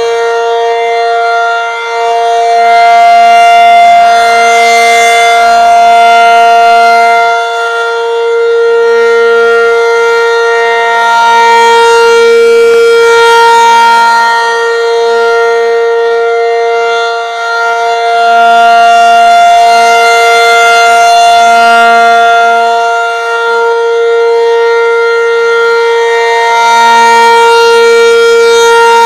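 Federal Signal 500-DH-TT rotating outdoor warning siren sounding its steady alert signal. It holds one unchanging pitch, and its loudness swells and fades about every eight seconds as the rotating horn sweeps past.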